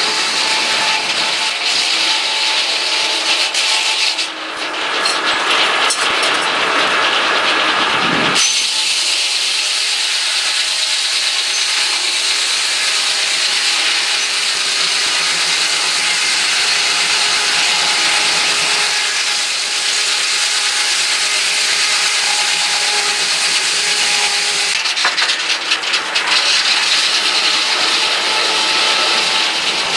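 Large circular sawmill blade ripping lengthwise through a log on the moving carriage: a steady, loud sawing sound, lighter for a few seconds between about four and eight seconds in before the blade bites fully into the wood again.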